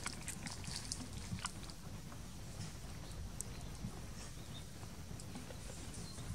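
Quiet outdoor ambience: a steady low rumble with scattered faint clicks and ticks.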